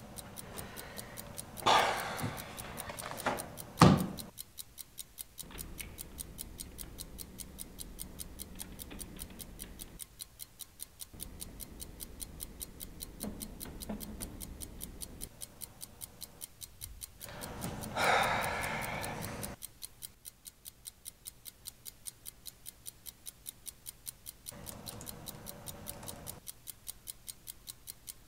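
Clock ticking steadily, a few ticks a second, with a couple of sharp knocks about two and four seconds in and a louder rustle about eighteen seconds in.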